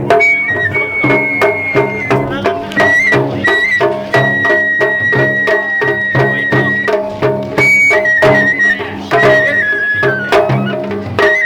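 Japanese festival music: a high bamboo flute melody, held notes stepping up and down, over a steady run of drum strokes.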